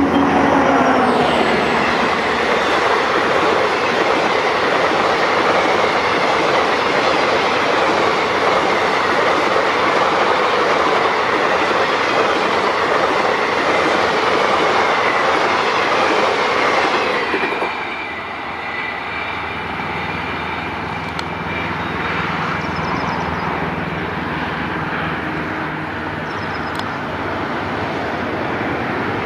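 Express passenger train hauled by a WDP 4B diesel locomotive passing close at speed. The locomotive's sound falls in pitch as it goes by about a second in. Then the coaches' wheels clatter loudly and steadily for about seventeen seconds, dropping off suddenly as the last coach passes, leaving a quieter rumble as the train recedes.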